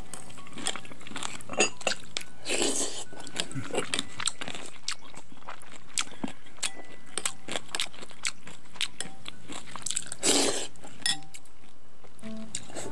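Close-up eating sounds: kimchi and rice soaked in cold barley water being bitten and chewed, with many small crunches and mouth clicks. Two louder sounds of about half a second come about two and a half seconds in and about ten seconds in.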